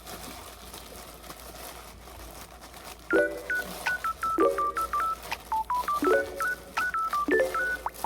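Background music: a bouncy, plinking melody of short stepped notes over a repeating chord, looping about every second and a half. It comes in about three seconds in after a quieter stretch.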